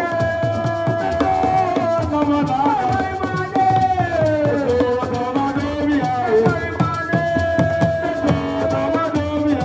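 Assiko music: a melody line of long held notes that bend and slide in pitch, most likely a singing voice, over steady hand-drum strokes and a shaker.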